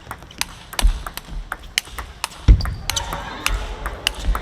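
Table tennis rally: the ball clicking off bats and table in quick succession, with a heavy thud about two and a half seconds in.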